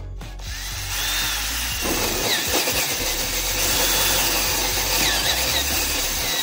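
Cordless drill spinning a 2-inch hole saw through a plastic trim panel, with steady cutting noise and a high, wavering squeal as the teeth bite. It starts about half a second in.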